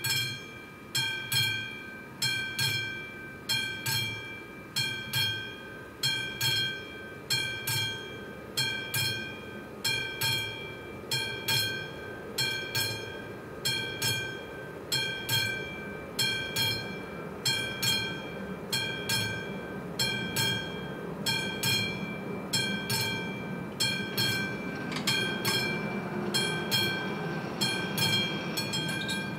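Railway level-crossing warning bell striking a little faster than once a second, each stroke ringing and dying away before the next: the crossing has been activated for an approaching train.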